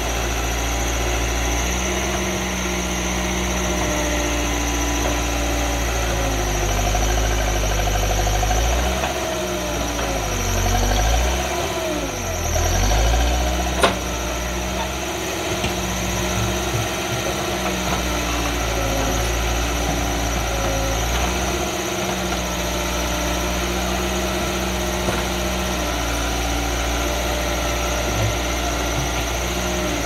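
Backhoe loader's diesel engine running steadily with a low rumble, its pitch rising and falling under hydraulic load in the middle as the backhoe arm works. A single sharp knock about fourteen seconds in.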